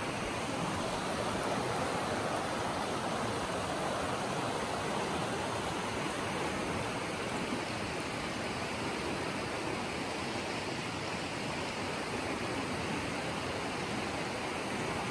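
Mountain river rushing over shallow rapids: a steady, even rush of water.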